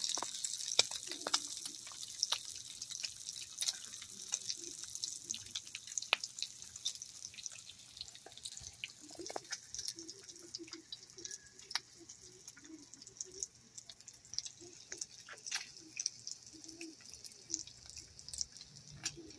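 Bacon frying in a cast-iron skillet: a steady high sizzle with many sharp crackles and pops of spitting fat, the sizzle easing somewhat after about ten seconds.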